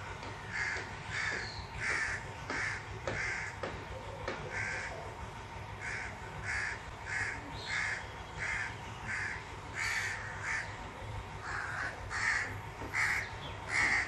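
A bird calling over and over, about one or two short calls a second, with a couple of brief pauses.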